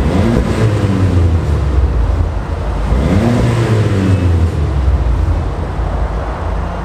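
Exhaust note of a Seat Ibiza 1.2 FR with a non-resonated stainless steel cat-back sport exhaust, revved twice over a steady low drone. The pitch rises and falls near the start and again about three seconds in, then settles lower near the end.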